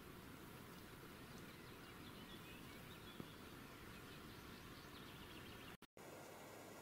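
Near silence: faint outdoor background hiss with a few faint high chirps and a small tick about three seconds in. The sound drops out completely for an instant near the end.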